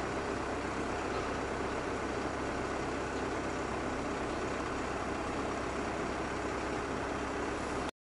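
Komatsu backhoe loader's diesel engine idling steadily, unattended, with no change in speed; the sound cuts off abruptly near the end.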